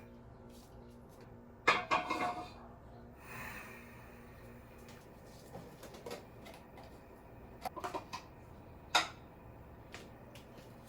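Household objects being handled and set down: a few clinks and knocks, a cluster about two seconds in, a few more before eight seconds, and a sharp one near nine seconds.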